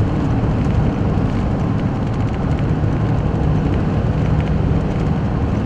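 Steady noise inside a moving car's cabin: engine hum with tyre and wind noise.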